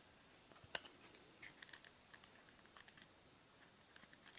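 Faint, scattered clicks and crinkles of a clear plastic trading-card holder being handled as the cards are worked out of it, with the sharpest click about three-quarters of a second in.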